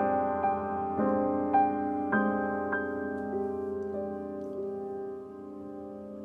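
Background music: a gentle electric piano melody, with notes struck about every half second that ring and decay, thinning out and growing softer in the last second or so.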